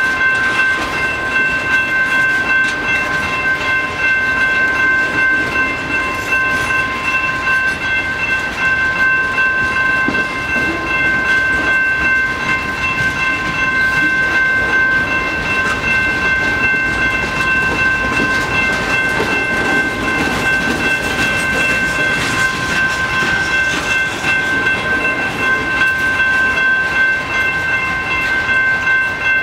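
Freight train boxcars rolling past on the rails with a steady rumble and clickety-clack of wheels over the track. A grade-crossing warning bell rings steadily over it, holding the same high tones throughout.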